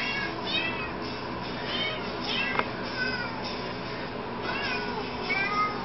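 A Christmas jingle made of recorded cat meows playing through a laptop's speaker. The short meows rise and fall one after another in the rhythm of the tune over faint backing music, with a single click near the middle.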